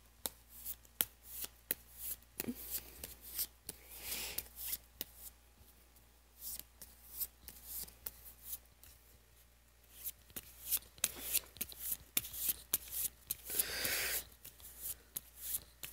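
A deck of Unstable Unicorns cards being shuffled by hand: runs of quick papery clicks and flicks, with short pauses between runs.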